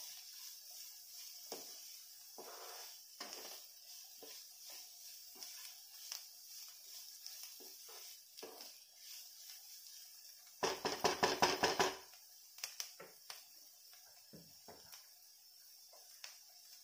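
A spatula stirring and scraping diced vegetables and paneer in a non-stick wok: irregular short strokes over a faint steady hiss. About two thirds through there is one louder rattling burst of about a second.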